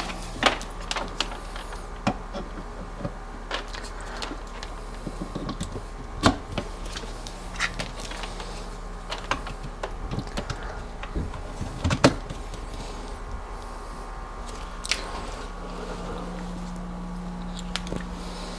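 Irregular sharp clicks and knocks of plastic being handled: the Anker outlet extender being pressed onto a wall outlet and plugs being pushed into it, over a steady low electrical hum. The loudest knocks come about six and twelve seconds in.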